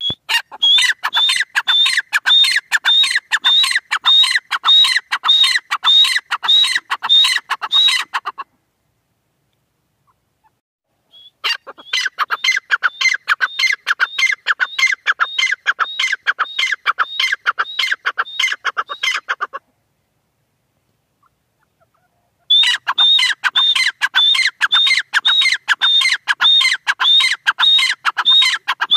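Grey francolin calling: three bouts of about eight seconds each of loud, rapid, evenly repeated shrill notes, separated by pauses of about three seconds.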